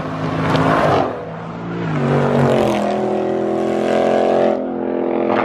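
Car engine revving: its pitch climbs about two seconds in, holds high for about two seconds, then drops back near the end.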